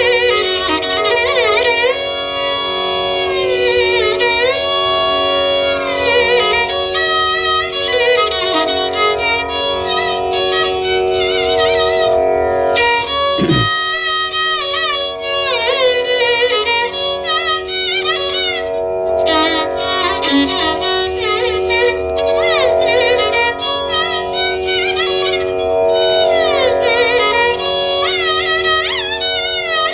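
Carnatic violin playing in raga Bilahari, its melody sliding and bending in ornamented phrases over a steady drone. A short low downward sweep sounds about halfway through.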